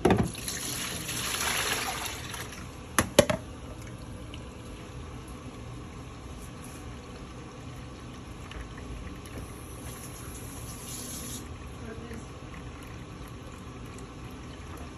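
Water rushing through a Siemens washing machine for about two seconds, two sharp clicks about three seconds in, then a faint steady running.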